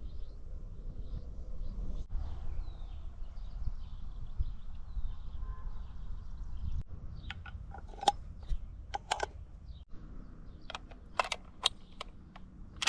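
A low steady rumble with faint bird chirps, then from about seven seconds in a run of a dozen or so short, sharp clicks and knocks, irregularly spaced.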